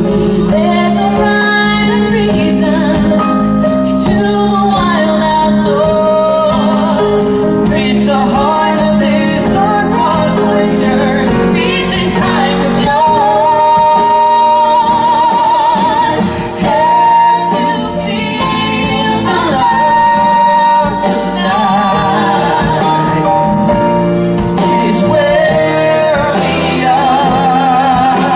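A man and a woman singing a pop ballad duet into microphones with a live band including drum kit and congas; several long held notes carry a wide vibrato.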